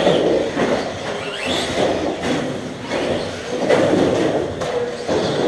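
Several RC race cars running on an indoor dirt track, their motors whining and rising and falling in pitch as they speed up and slow down.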